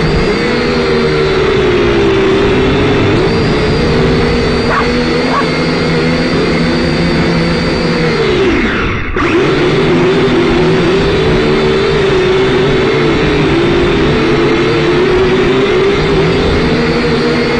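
Syma X5C quadcopter's small electric motors and propellers whining close to the microphone, the pitch wavering up and down as the throttle changes. About nine seconds in, the pitch drops sharply and the sound breaks off briefly before the whine returns.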